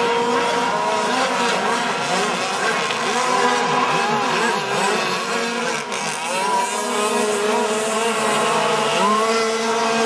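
Engines of several radio-controlled offshore racing boats running at speed, a high-pitched whine from several engines at once, each pitch rising and falling as the boats throttle up and back.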